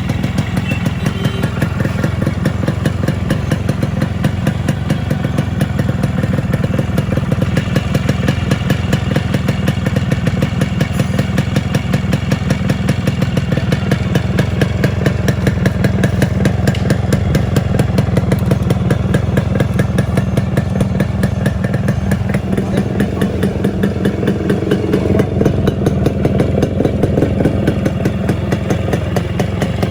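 Modified Yamaha RX100's two-stroke single-cylinder engine running steadily at low revs, its exhaust giving a rapid, even beat.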